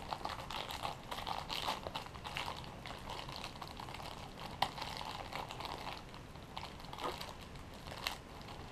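Thin plastic bag crinkling and rustling as fingers pick and pull at it to get it open, with a few sharper clicks.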